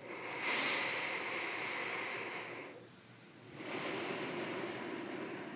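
A person taking one slow, deep breath close to a microphone. There is a long breath in, a pause of under a second, then a long breath out.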